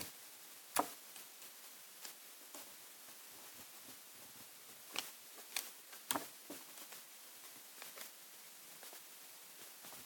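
A few short, sharp clicks and taps, the loudest about a second in and a cluster around five to six seconds in, as tape is pulled and torn off a desktop tape dispenser and a paper card is handled.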